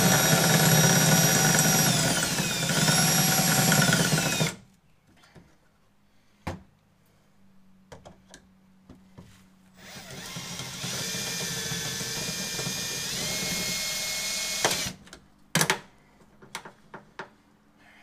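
Cordless drill drilling out the rivets that hold a car's rear bumper bracket. A loud whining run lasts about four seconds and slows briefly partway through. After a few clicks and knocks comes a second, quieter run whose pitch steps up before it stops, then short clicks.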